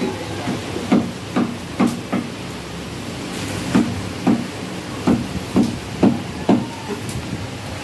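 Butcher's cleaver chopping mutton on a round wooden chopping block: a run of about a dozen knocks, roughly two a second, with a pause of a second or so partway through.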